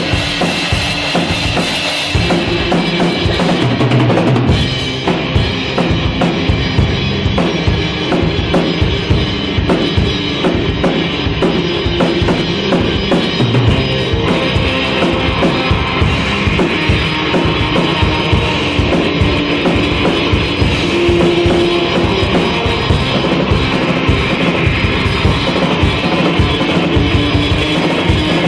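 Band music with a steady drum-kit beat.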